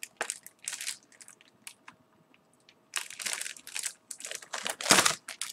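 Packaging on a flat paper package crinkling and crackling in short bursts as it is handled and turned over, with a quieter gap of about two seconds; the crinkling is densest in the second half, loudest about five seconds in with a dull knock.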